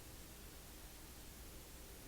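Near silence: a steady background hiss with a low hum.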